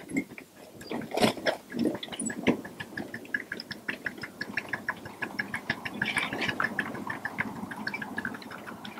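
Ride-on miniature live steam train running past, a quick run of regular clicks over a steady rolling rumble that gets busier about three seconds in.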